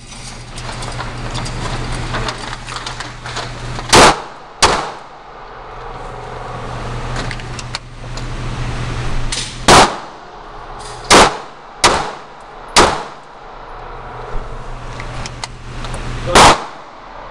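Firearm shots at a shooting range: seven sharp reports at irregular intervals, the first about four seconds in, four of them much louder than the rest. A steady low hum runs underneath between shots.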